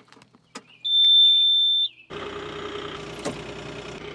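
Bobcat E35 mini excavator starting up: a loud, steady high-pitched electronic beep sounds for about a second, then the diesel engine starts about two seconds in and runs steadily.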